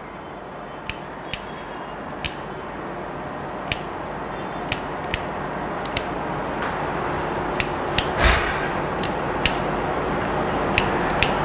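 Keys of a handheld scientific calculator being pressed one at a time, a dozen or so sharp, irregular clicks, as coefficients are entered to solve three simultaneous equations. A steady hiss underneath grows slowly louder.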